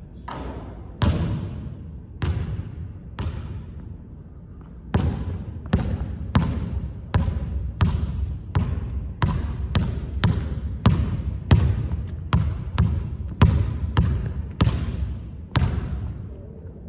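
Basketball bouncing on a hardwood gym floor, each bounce echoing around the hall. A few spaced bounces come first, then from about five seconds in a steady dribble of under two bounces a second.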